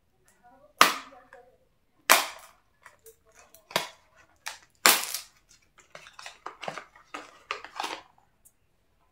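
A small cardboard product carton being torn and pried open by hand: four loud, sharp snapping cracks, then lighter quick clicks and rustling as the inner box is pulled out of its sleeve.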